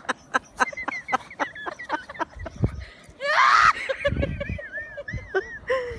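A person laughing and giggling in quick short bursts, then a loud shriek about three seconds in, followed by high wavering squeals of laughter.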